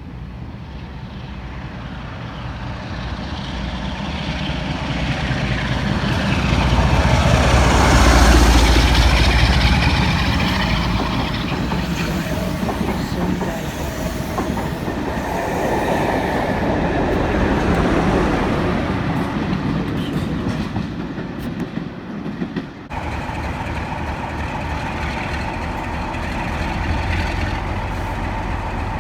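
Charter passenger train passing on the line, its noise building to its loudest about eight seconds in and then carrying on. It breaks off abruptly about 23 seconds in and resumes as steady train running noise.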